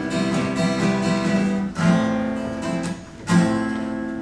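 Acoustic guitar strumming sustained chords in an instrumental gap between sung lines, with two hard strums, a little under 2 seconds in and again about 3 seconds in.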